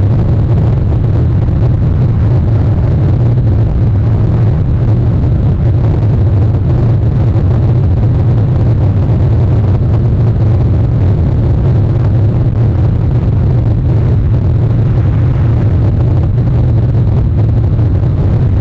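Steady, loud low rumble with a hiss above it that never changes, typical of wind and outdoor noise picked up by an exposed nest-camera microphone.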